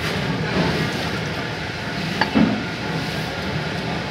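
A cleaver chopping through catfish onto a wooden stump block: one sharp knock about two seconds in, over steady background noise.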